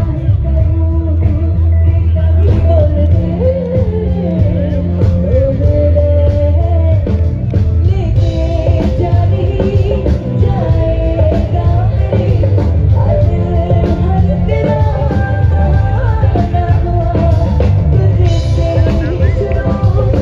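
Live band music amplified through stage speakers: a singer over heavy bass and drums.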